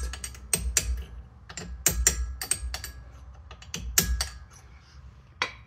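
Hammer tapping a small punch against the pad retaining pin of a Porsche Macan front brake caliper, driving the pin out: a series of sharp metallic taps, irregularly spaced, thinning out after about three seconds.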